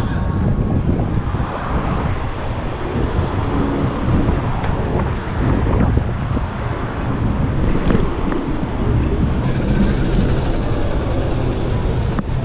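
City road traffic noise heard from a moving bicycle: a continuous rumble of passing cars and other vehicles, heaviest in the low range.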